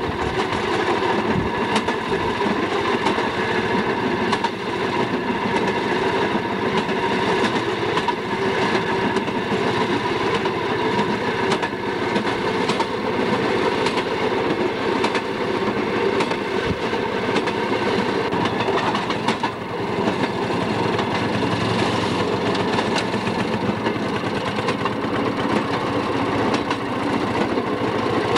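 Railroad motorcar (track speeder) running along the line: a steady engine drone with the wheels clicking over the rail joints at irregular intervals.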